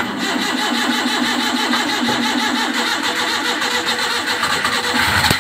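A multicab mini truck's starter motor cranking the gasoline engine with the fuel turned off, steady for about five seconds without the engine catching, then cut off suddenly.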